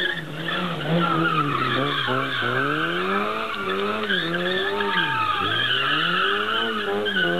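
Car engine revving up and down as the car is driven hard, its revs rising and falling several times and dropping low about five seconds in, with tyres squealing over it.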